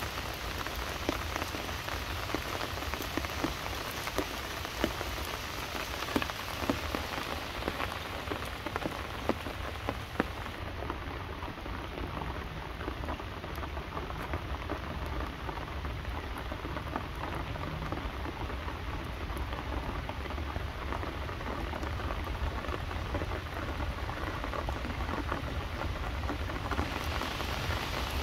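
Steady rain falling on leaves, with many separate drops ticking close by. About ten seconds in, the sound turns smoother and duller: rain on wet pavement and road.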